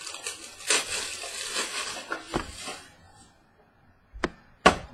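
Rustling and handling noise from trading cards and their packaging being handled for about three seconds, then a short pause and two sharp knocks on the table near the end.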